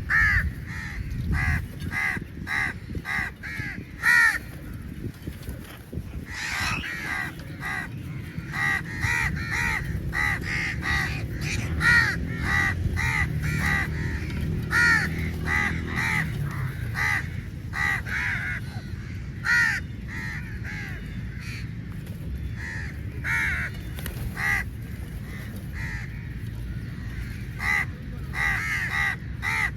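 A flock of crows cawing, many short harsh caws in quick overlapping runs, with a lull of a few seconds in the later part.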